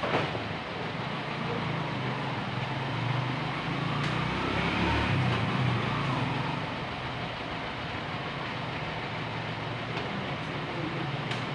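A steady motor hum with noise over it, swelling to its loudest around the middle and then easing back.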